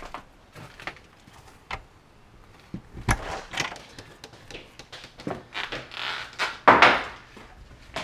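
Scattered clicks and knocks as a door is opened and shut, with the loudest rush of noise about three-quarters of the way in.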